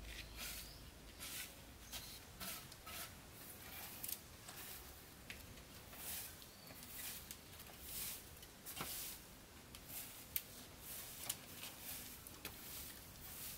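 Soft grass broom sweeping bare dirt ground: faint, irregular swishes about one or two a second, with a couple of sharp ticks.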